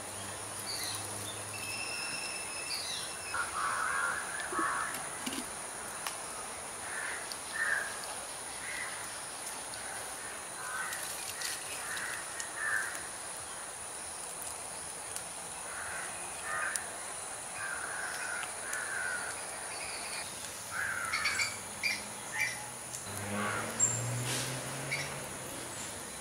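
Crows cawing, short calls repeated on and off throughout, with a few higher whistled notes from smaller birds in the first few seconds.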